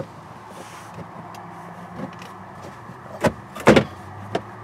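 Hard knocks from hands working a carpeted seat lid and the gear beneath it: a few faint taps, then two sharp knocks close together a little over three seconds in, over a low steady hum.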